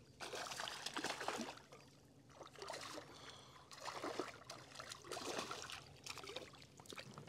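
Water splashing and trickling in irregular bursts at the side of a kayak as a small hooked zander is brought in.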